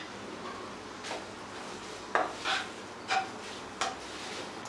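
Spatula stirring and scraping minced chicken around a non-stick kadai, a few short scraping strokes in the second half over a faint steady hiss.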